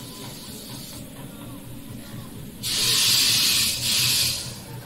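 A loud hiss starts about two and a half seconds in and lasts nearly two seconds, with a short break near its middle, over a steady low hum.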